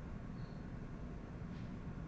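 Steady low background rumble, with a faint short high squeak about half a second in and another faint brief high chirp near the end.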